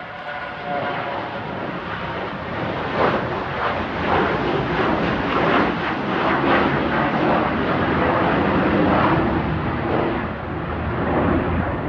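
McDonnell Douglas MD-82's twin rear-mounted low-bypass turbofans at takeoff power, a whine at first giving way to a loud, crackling rumble that builds.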